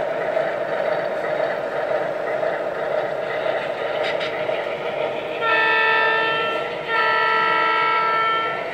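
O scale model locomotive's onboard sound system sounding a train horn twice: a long blast, then a slightly longer one. Both play over the steady rumble of the running train.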